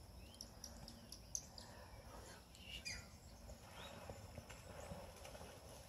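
Faint birds chirping with short calls here and there, over quiet outdoor background and a steady high insect drone.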